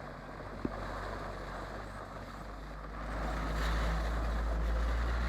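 A vehicle driving through floodwater: engine running with the rush of water, growing clearly louder about three seconds in as it comes closer.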